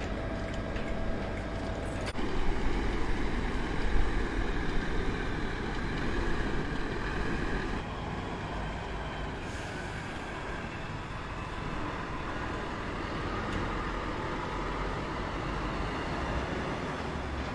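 DAF heavy-haulage lorry running on the road, a steady diesel engine and tyre noise. It is louder and rougher for about six seconds starting two seconds in, then settles to an even run.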